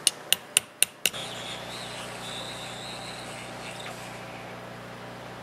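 Five quick, sharp clicks in the first second as an M3 nut and a small 3D-printed plastic gear are handled, with the nut being worked into the gear's nut trap. After that a faint steady low hum comes in.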